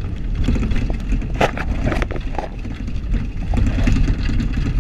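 Inside the cabin of a vehicle driving on a rough dirt road: a steady low rumble of engine and tyres, with frequent short knocks and rattles from the body jolting over the ruts.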